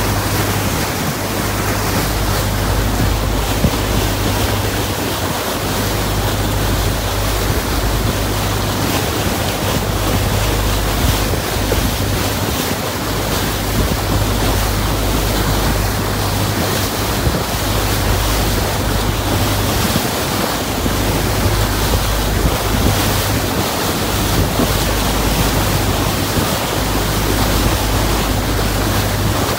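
Passenger ferry boat under way: its engine drones steadily while water rushes and splashes along the hull, and wind buffets the microphone.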